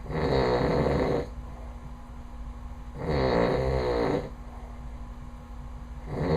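A man snoring loudly in his sleep: rattling snores about one every three seconds, each lasting a little over a second, with a third snore starting near the end.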